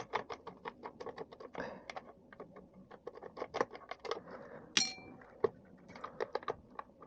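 Quick, irregular clicks and taps of a hand screwdriver working screws out of the plastic body of a vintage RC truck, with one short ringing metallic clink about five seconds in.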